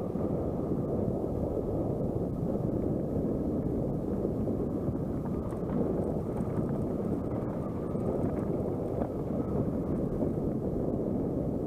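Steady rushing wind noise on the microphone, mixed with the rumble of mountain bike tyres rolling down a dry, rocky singletrack.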